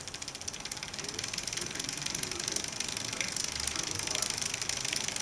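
Bicycle chain running through the rear derailleur's jockey pulleys and over the cassette, a rapid, continuous ticking whir that gets a little louder about a second in. The owner takes this chain/pulley noise to be probably normal.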